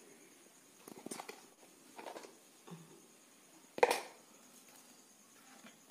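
Spoon and spice-container handling while powdered spices are spooned over raw small fish on a leaf: a few brief scrapes and rustles, and one sharper knock about four seconds in.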